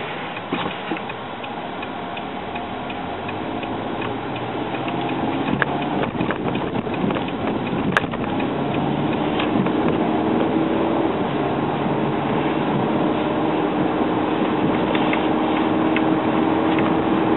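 Inside a 2010 Hyundai Accent, the turn-signal indicator ticks steadily as the car turns. Then the four-cylinder engine and road noise grow gradually louder as the car gathers speed.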